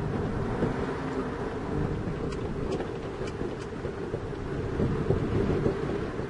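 Steady low rumble of a truck's engine and road noise heard from inside the cab while driving.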